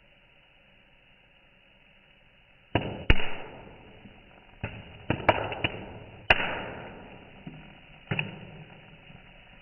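Popcorn kernels popping: about nine sharp, irregularly spaced pops, starting about three seconds in, each followed by a fading tail.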